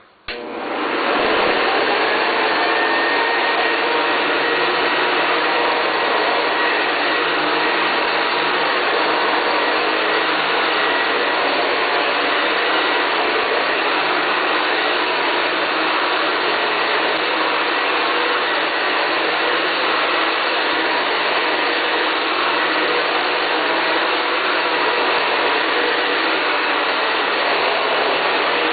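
Hoover U589 Convertible upright vacuum cleaner switched on, its motor spinning up over about the first second, then running steadily at full speed with a constant whine.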